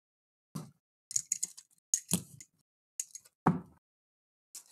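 Sealed trading-card hobby box being handled and its plastic shrink-wrap cut with a box cutter: about five short scrapes, crinkles and clicks, each separate from the next.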